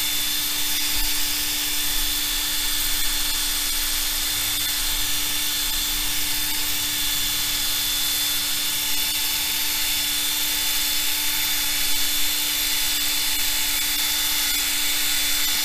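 Electric drill running steadily at speed, spinning a buffing pad against a plastic windscreen to polish out haze and scratches: an even motor whine over a hiss.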